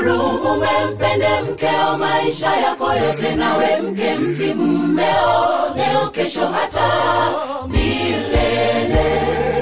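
Gospel choir singing in harmony over a bass line. A kick-drum beat of about two thumps a second comes in near the end.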